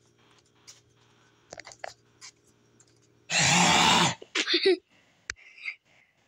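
A man's harsh hacking, retching noise about three seconds in, followed by short gagging sounds, imitating a pet bringing something up. A few faint scuffs and clicks come before it.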